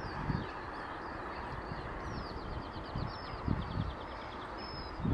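Small birds singing, with a rapid trill of chirps about two seconds in, over a steady background rush and irregular low thumps.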